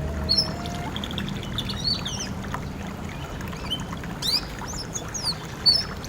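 Birds chirping and calling in short, quick phrases over a steady wash of running water. A held, wavering suling bamboo flute note ends about a second in.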